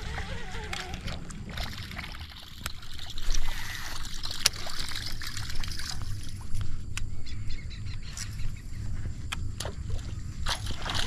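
Water splashing and sloshing, with scattered sharp clicks and a steady low rumble underneath.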